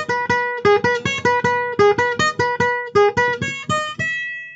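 Background music: an acoustic guitar picking a quick repeating pattern of plucked notes, fading out near the end.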